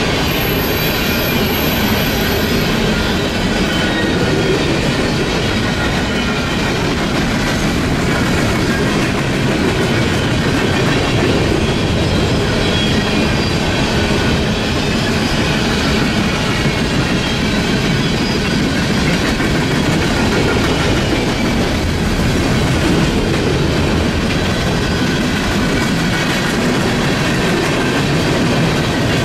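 Empty steel coal hopper cars of a long freight train rolling past at close range: a steady, loud rumble and rattle of wheels on rail, with faint high ringing tones over it.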